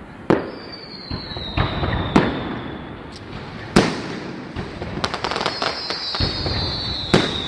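Aerial fireworks display: four sharp bangs of bursting shells, spread across the seconds. Two long whistling tones fall slightly in pitch, and a patter of crackling bursts comes in the second half.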